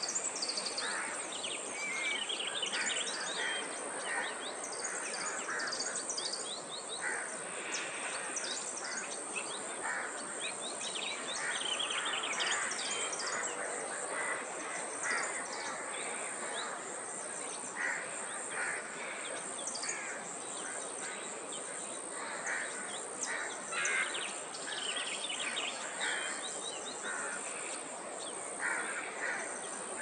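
A chorus of many wild birds calling at once: dense, overlapping short chirps and calls with no pause, over a steady background hiss.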